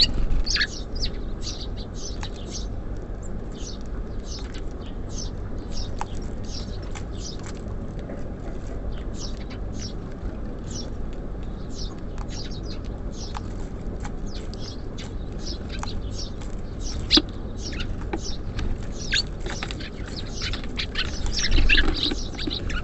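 Small songbirds at a feeder chirping busily, many short quick chirps overlapping one another, over a steady low background rumble. A few sharper clicks stand out, the loudest about 17 seconds in.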